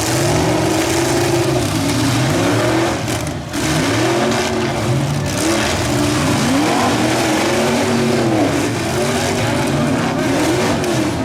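Several demolition derby cars' engines revving, their pitch repeatedly rising and falling and overlapping, over a steady dense noise.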